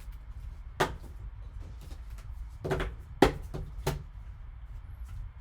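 Trading cards being handled and set down on a tabletop: several sharp clicks and taps, the loudest about three seconds in, over a steady low hum.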